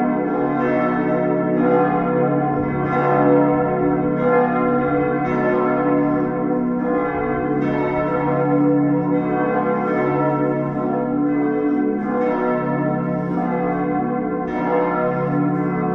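Full peal of church bells: all the bells of the church ringing together, their strokes overlapping in an uneven, continuous stream over a steady hum of lingering tones.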